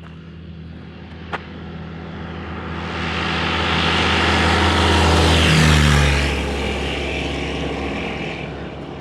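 Light propeller aircraft passing by: the engine grows louder to a peak about five to six seconds in, drops in pitch as it goes past, then fades away.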